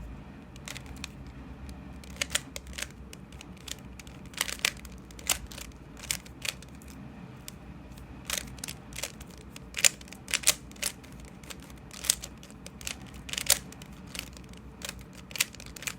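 Plastic Rubik's Cube layers being turned by hand: irregular sharp clicks and clacks, often in quick pairs or clusters, becoming louder and more frequent after the first couple of seconds.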